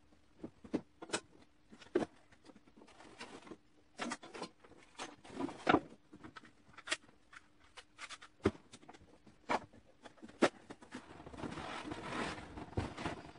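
Hands working on a wooden planter box: scattered sharp clicks and knocks at irregular intervals, with rustling of a plastic liner sheet as it is handled near the end. A faint steady hum sits underneath.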